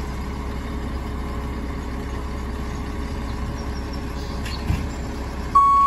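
Garbage truck's diesel engine running steadily with a low rumble, with one brief knock a little before the end. Right at the end its reversing beeper starts with a first loud beep.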